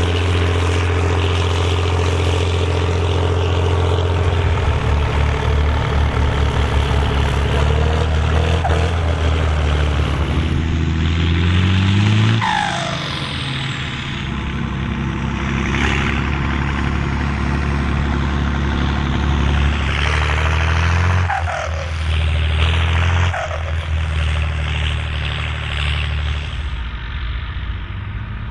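Volvo BM Turbo tractor's turbocharged diesel engine running with a high turbo whistle. The revs climb slowly and drop sharply about twelve seconds in, with a falling whistle as the turbo spools down. Twice more near the end, the engine is blipped and let off with the same falling chirp.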